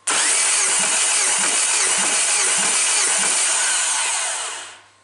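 Starter motor cranking a bare 1.8-litre 16-valve SQR481FC engine for about four and a half seconds during a compression test of cylinder one. It starts abruptly and fades out near the end.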